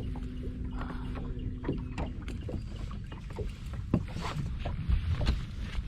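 Sounds aboard a bass boat: a low steady rumble with a hum that stops about two seconds in, and scattered knocks and clicks.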